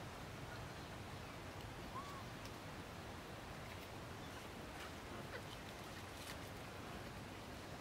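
Quiet outdoor background noise, a steady low hiss, with one faint short chirp-like call about two seconds in and a few faint clicks past the middle.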